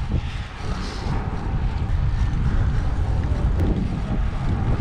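Wind buffeting the microphone on a moving road bike: a steady low rumbling rush.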